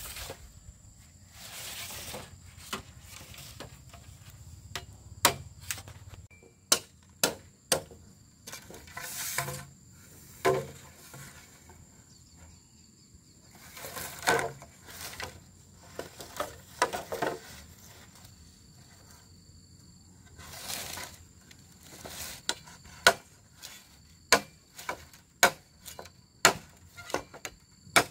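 Irregular sharp knocks and clacks of hand work, like chopping or handling wood or utensils, with several short scraping or rustling sounds in between. Near the end the knocks come in a quicker run, roughly two a second. A faint steady high whine sits underneath.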